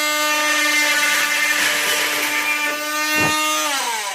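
Oscillating multi-tool with a toothed saw blade cutting through a plastic tube, a steady high-pitched buzz. About three seconds in there is a short knock as the cut-off end comes free, and near the end the tool winds down, its pitch falling as it is switched off.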